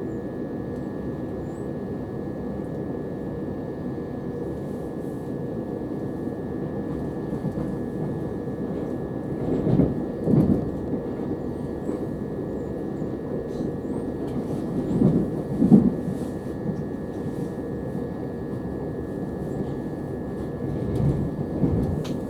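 Running noise inside a Southern Class 377 electric multiple unit: a steady rumble of wheels on rail, with louder knocks and rattles about ten seconds in and again around fifteen to sixteen seconds in.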